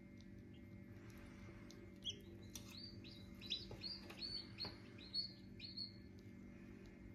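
Copper Marans chick peeping from inside its partly opened egg while it is helped out of a shell it could not zip. About two seconds in comes a quick run of roughly nine short, high peeps over about four seconds, above a steady low hum.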